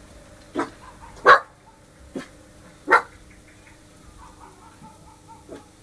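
A dog barking four times in about two and a half seconds, the second and fourth barks the loudest.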